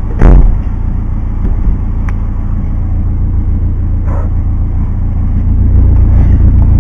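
Car engine running with its exhaust close by, a deep steady rumble that grows slightly louder. A brief loud knock comes about a quarter second in.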